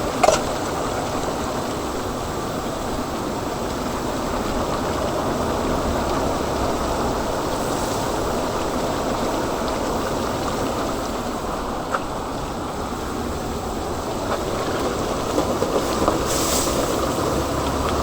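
Large pots of chicken stew bubbling hard over burners: a steady, dense rushing and bubbling, with a couple of faint knocks about two-thirds in and near the end.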